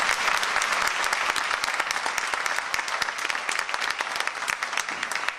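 Audience applauding steadily, the many claps easing slightly toward the end.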